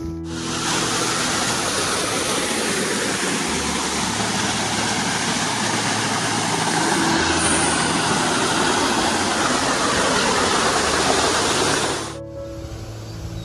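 Small forest waterfall pouring over rocks: a loud, steady rush of falling water that cuts in suddenly at the start and stops abruptly near the end, with soft background music beneath it.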